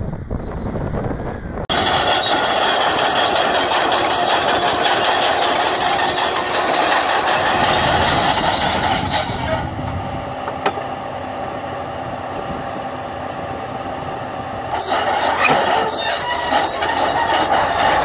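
Komatsu crawler dozer working under load as it drags a large plough through dry soil: diesel engine running and steel tracks clanking. Much louder from about two seconds in; it eases a little around the middle and rises again near the end.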